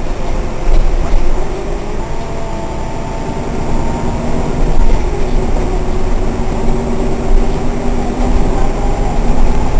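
Solaris Urbino 8.6 city bus heard from inside the passenger cabin while driving: a low engine and road rumble with a steady drivetrain whine of several tones that climbs slightly in pitch.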